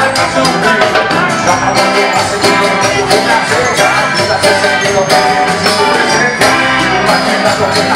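Live band playing loudly: a drum kit keeping a steady beat under electric guitar and bass, with jingling hand percussion on top.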